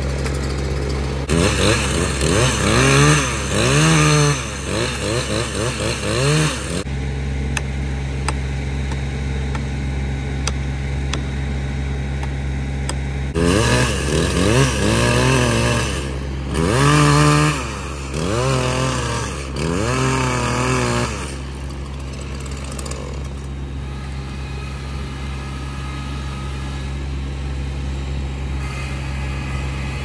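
Two-stroke chainsaw idling steadily, revved hard with the pitch rising and falling in two bouts of cutting at the base of a tree, one from about a second in to about seven seconds, the other from about 13 to 21 seconds in, then dropping back to idle.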